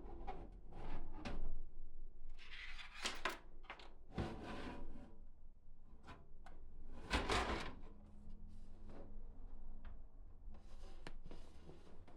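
Irregular clicks, knocks and short scraping or rustling sounds of objects being handled and set down. The loudest come about three, four and seven seconds in.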